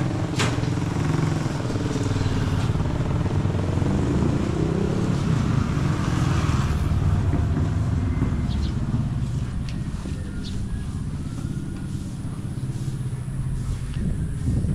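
A motorcycle engine running steadily close by, a low rumble.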